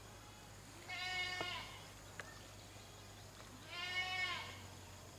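An animal bleating twice, a call about a second in and another near four seconds, each under a second long, with a faint click in between.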